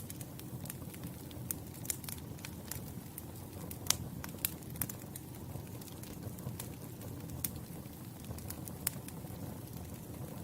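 Campfire burning: a steady low rumble of flames with irregular sharp pops and crackles of burning wood, the loudest pop about four seconds in.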